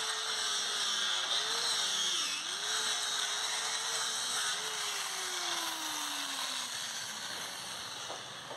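Angle grinder fitted with a polishing wheel buffing a stainless steel pipe weld: a steady motor whine over abrasive hiss, dipping briefly under pressure about two seconds in. Over the last few seconds the whine falls in pitch as the tool winds down.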